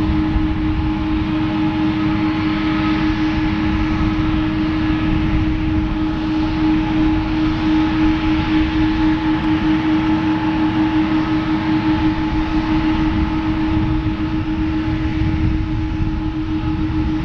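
Boeing 777-200ER's twin turbofan engines running at taxi thrust as the airliner rolls slowly along: a steady jet whine with a strong low hum over a rushing noise.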